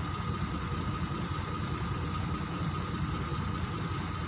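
A vehicle's engine idling steadily, with a thin steady high tone above the low running.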